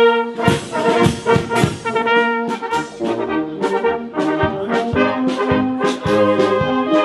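Brass music with a steady beat: several horns, trumpets and trombones, playing a lively tune.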